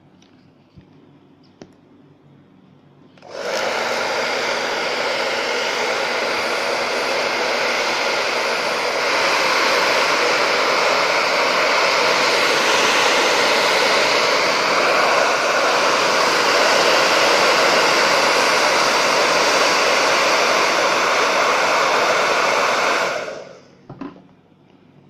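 Handheld hot-air blower switched on about three seconds in, running steadily for about twenty seconds, then switched off. It is aimed at the edge of a MacBook Air's cracked display, heating the adhesive that holds the panel so it can be pried off.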